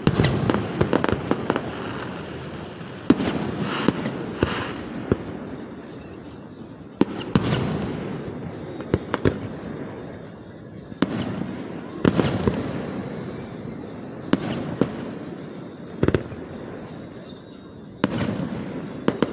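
Fireworks display: aerial shells bursting with sharp bangs every two to four seconds, each trailing off in a rolling rumble, with quick runs of smaller crackling pops between some of them.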